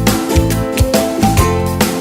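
Upbeat background music with plucked guitar and a steady beat.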